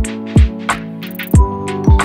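Background music with a drum beat and high ticking cymbal over held chords.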